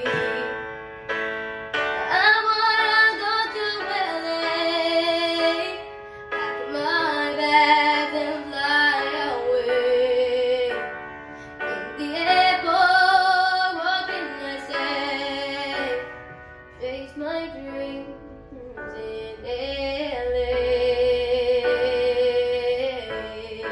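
A girl singing solo in English pop style over instrumental accompaniment, ending the phrase on one long held note near the end.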